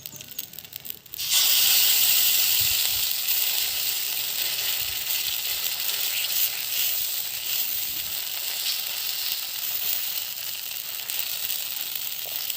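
Rice-and-urad-dal adai batter with climbing brinjal leaves sizzling on a hot pan, the hiss starting suddenly about a second in, loudest at first and then slowly easing off.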